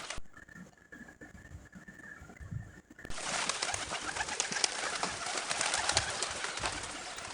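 Pigeons cooing, low and repeated. About three seconds in, the sound switches abruptly to a recording with a loud steady hiss behind the cooing.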